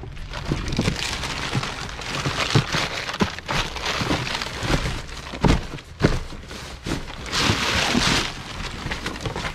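Cardboard boxes, plastic bags and olive branches rustling, crinkling and knocking as they are stuffed by hand into a car's hatchback boot, with a louder crinkling stretch near the end.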